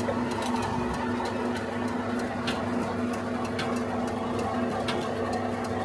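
Steady machine hum holding one low tone, with scattered light clicks and taps.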